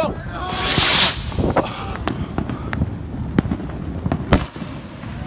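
A firework rocket goes off with a loud hiss, followed by scattered crackles and pops, and then one sharp bang about four seconds in.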